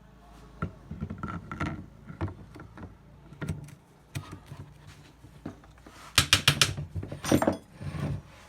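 Irregular clinks and knocks of metal parts and tools being handled during starter motor repair work, with a quick run of about four sharp strikes about six seconds in and another cluster soon after.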